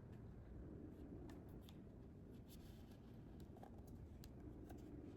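Near silence: low, steady room tone with a few faint, soft clicks.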